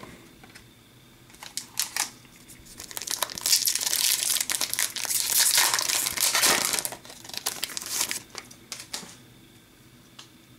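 Wrapper of an Upper Deck Series 1 hockey card pack crinkling and crackling as it is opened. It starts about a second and a half in, is loudest for a few seconds in the middle, and dies away near the end.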